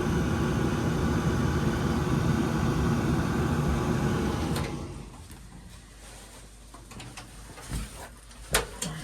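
Luxaire gas furnace's motor running with a steady hum, then shutting off about four and a half seconds in. A few light knocks and clatters follow near the end.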